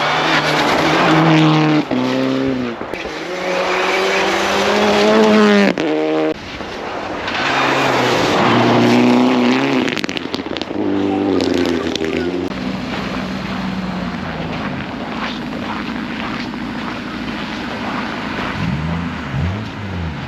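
Rally car engine revving hard through the gears, its pitch climbing and then dropping back at each shift, about four times, with tyre noise. For the last several seconds it settles to a steadier, lower engine note.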